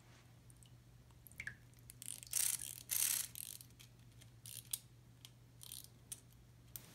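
Small clockwork mechanism of a wind-up mermaid swim toy clicking irregularly, with two louder noisy bursts about two to three seconds in.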